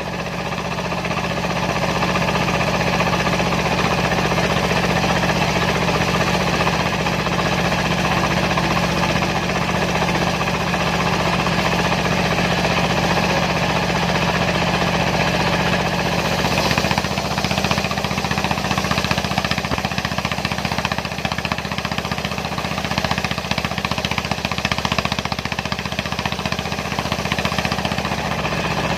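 Dongfeng diesel engine running steadily, driving the circular saw of a homemade sawmill.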